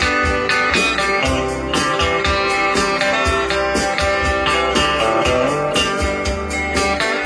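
Electric guitar playing a country tune, with a bass line and a steady beat.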